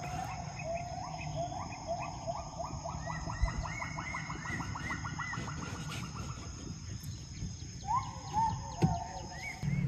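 Wild gibbons calling from the forest: a run of rising whoops that speed up and climb in pitch, then a longer rising note near the end. The gibbons are calling to their group.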